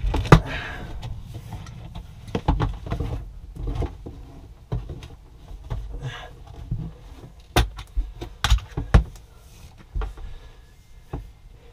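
Handling noise as a thick black power cable is pulled and worked into place by hand: scattered bumps, rubbing and rustling, with a few sharp knocks about two-thirds of the way in.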